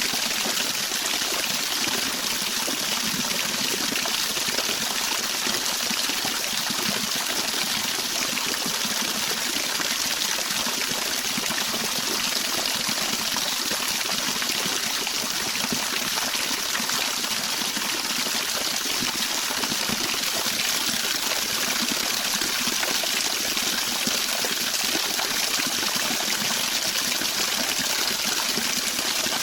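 Running water of a stream, an even rushing with no breaks or changes.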